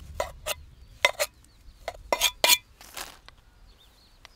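Kitchen utensils clinking and knocking against dishes: about eight sharp, irregular strikes with a brief ring over three seconds.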